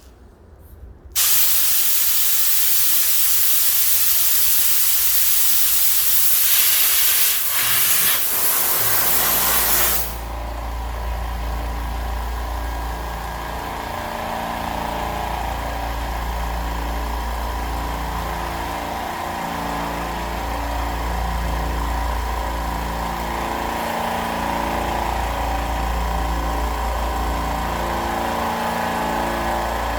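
Compressed air hissing loudly from an oilless air compressor for about nine seconds. Near the end of the hiss the compressor's motor starts and runs on steadily with a low hum.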